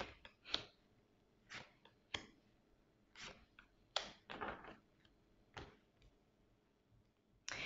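Oracle cards being drawn from a deck and laid on a table: about eight faint, short clicks and slides of card against card and card against tabletop, spaced irregularly.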